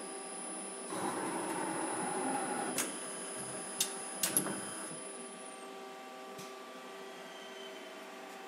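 CNC slant-bed lathe running: a steady machine hum with a whirring noise for about two seconds, three sharp clicks, and a high whine that winds down and stops about five seconds in.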